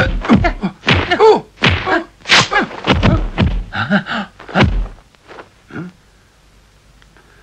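Kung fu film fight sound effects: a rapid series of sharp punch and block thwacks, about three a second, that stops about five seconds in, followed by a couple of fainter hits.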